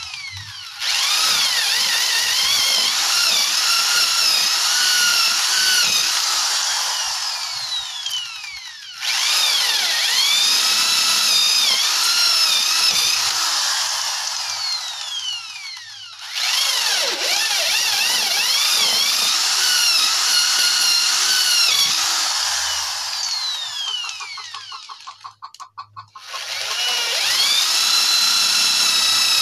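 Corded electric drill boring into a wooden plank, its motor whine wavering as the bit bites into the wood. It runs in several stretches of six to eight seconds, and each time its pitch sweeps down as the trigger is let go before it starts up again for the next hole.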